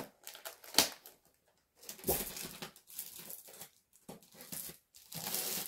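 Plastic film wrapping on new scrapbooking paper sheets crinkling as it is opened: a short sharp crackle about a second in, a longer rustle around two seconds in, and another near the end.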